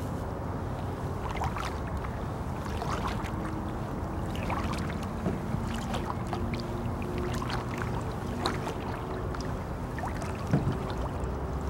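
Canoe paddling on calm water: soft paddle splashes and drips about every second and a half over a steady low background noise, with one sharper knock near the end.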